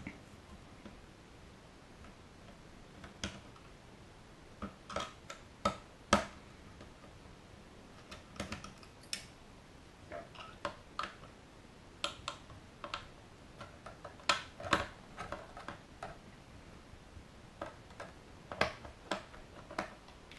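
Small irregular clicks and taps of a 2 mm hex screwdriver turning the small retaining screws out of a DJI Phantom's plastic body shell, coming singly and in small clusters.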